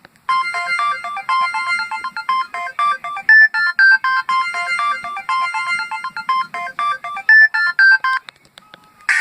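LG 237C phone's built-in ringtone: a quick melody of short, bright notes, about four a second, with the phrase played twice. It stops about eight seconds in, and the next ringtone, a dense buzzing tone, starts just before the end.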